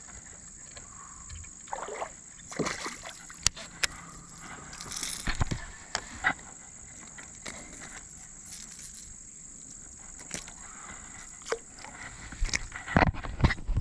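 Water sloshing and small splashes around a kayak, with scattered knocks and clicks, over a steady high-pitched buzz. The clusters come about two, five and thirteen seconds in.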